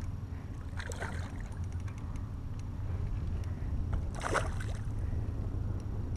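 A hooked smallmouth bass splashing at the surface beside a kayak, with a short splash about a second in and a louder one about four seconds in, over a steady low rumble.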